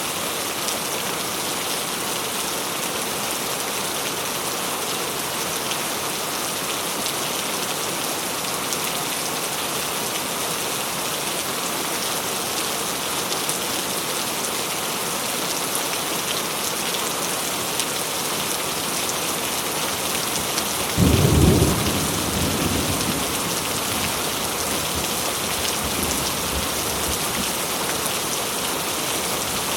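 Steady rainfall with a constant hiss, and a single clap of thunder about two-thirds of the way through that rumbles away over a few seconds.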